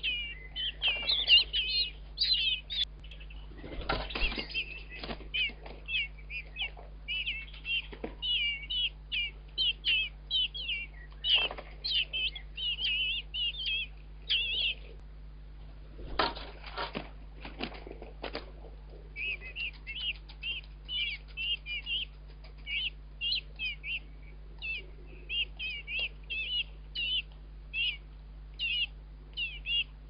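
Blackbird nestlings giving rapid runs of short, high-pitched begging calls, with a brief break in the middle. Rustling and wing flaps from the adult at the nest come a few times, loudest about a third and about half of the way through.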